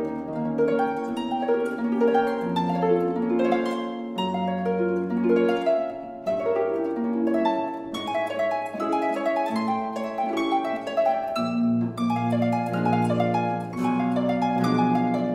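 Concert pedal harp played solo: a continuous stream of plucked notes ringing on over sustained low bass notes.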